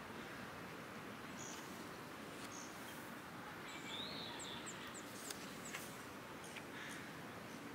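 Steady background hiss of ambient noise with a few short, high bird chirps scattered through it, including an arching call about four seconds in.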